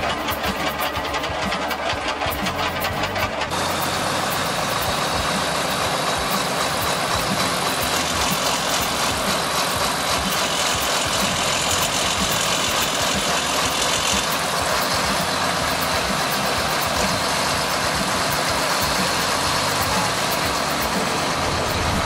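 Heavy MAN KAT off-road truck's diesel engine running steadily.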